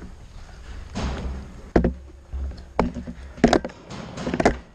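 A handful of sharp knocks and thuds at irregular intervals, over a steady low rumble, from players moving with their markers and gear during a paintball game.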